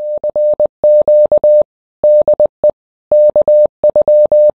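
Morse code: a single steady mid-pitched beep keyed on and off in short and long elements, with a couple of longer pauses between groups, as sent in amateur-radio CW.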